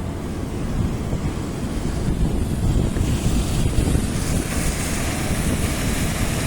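Woodchip discharging machinery running with a steady, noisy rumble, getting a little louder about three seconds in, with wind buffeting the microphone.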